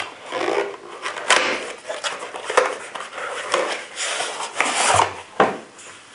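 Cardboard ammunition box being handled and opened: cardboard rubbing and scraping, with a few sharp taps as the end flap is pulled open and the tray of rifle cartridges slides out.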